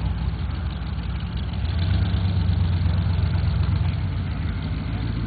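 Supercharged V8 of a hot-rod pickup running at low revs as the truck creeps along, a steady low engine sound that grows a little louder about two seconds in.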